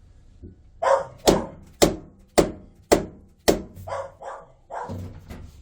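Five sharp knocks about half a second apart, with a dog barking several times around them.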